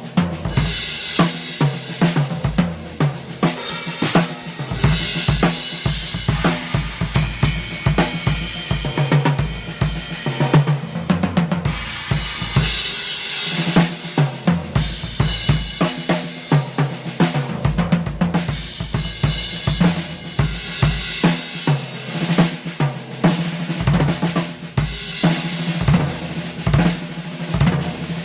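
Gretsch Broadkaster drum kit being played in a continuous beat, with bass drum, snare, hi-hat and cymbals struck in a steady rhythm.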